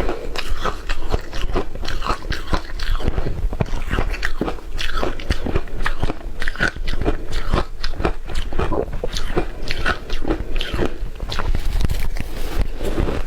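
Close-up crunching and chewing of shaved ice in the mouth, a dense run of crackly crunches at an irregular pace.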